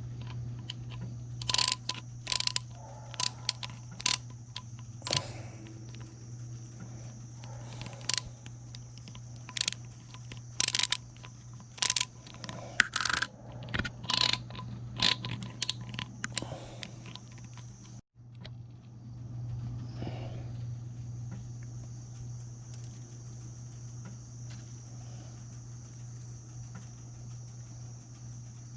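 Small metal parts of a spinning reel clicking and tapping as they are handled and fitted back together, in irregular sharp clicks that stop about two-thirds of the way in. Underneath is a steady high insect chorus and a low hum.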